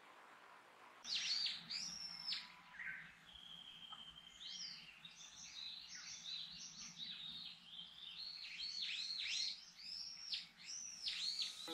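Small forest birds singing and calling over one another, a dense run of quick, high, arching notes repeated several times a second, starting about a second in.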